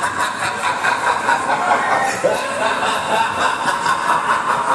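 Ride noise heard from on board a spinning waltzer car at speed, with riders' voices and laughter mixed in.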